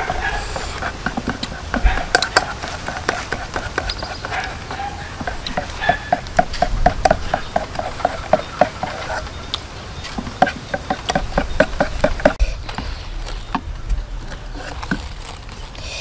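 Batter being mixed by hand in a small aluminium pot, with a run of quick clinks against the pot partway through.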